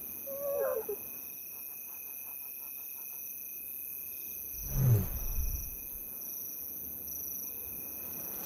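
Lioness giving a soft, low contact call about five seconds in, the call that tells hiding cubs it is safe to come out, after a short higher wavering call near the start. Crickets chirp steadily throughout.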